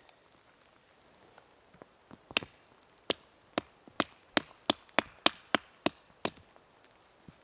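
Wood being chopped: about eleven sharp strikes in quick succession, starting about two seconds in and stopping a little after six seconds.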